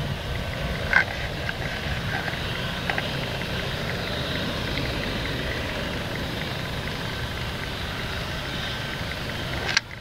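Claas Lexion 780 combine harvester running steadily while cutting standing winter wheat, a continuous machine noise with a faint steady whine and a sharp click about a second in.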